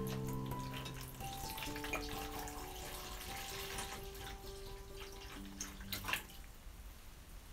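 Water poured from a plastic measuring jug splashing into a shallow plastic tub of water. The stream thins and stops about six seconds in.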